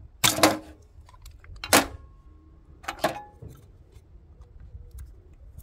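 Utility knife cutting through the plastic nozzle of a sealant cartridge: three sharp cracks about a second and a half apart, with a blade that is probably not sharp.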